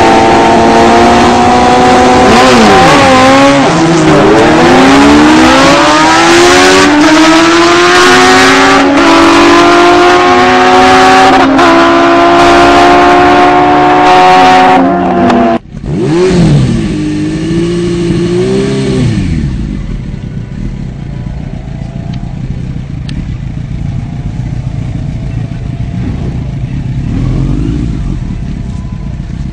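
A drag-racing sport bike's engine at full throttle: a high rev at the line, then a hard launch and acceleration through several gear shifts, the pitch climbing and dropping at each shift. After a break about halfway through, an engine note winds down and gives way to a quieter low idle.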